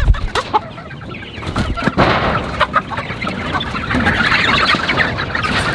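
A crowded flock of hens and young chickens clucking together at close range, with wings flapping as the birds scramble around a waterer.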